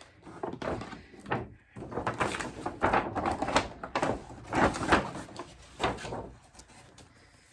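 Packaging being handled: a series of rustling, scraping bursts that die away near the end.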